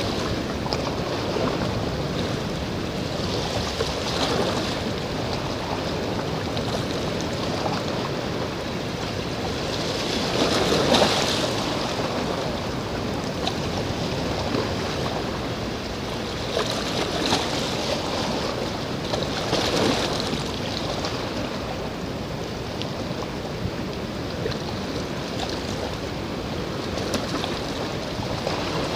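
Steady rush of wind and sea surf at the water's edge, with no other sound standing out. It swells louder several times, most strongly about eleven seconds in.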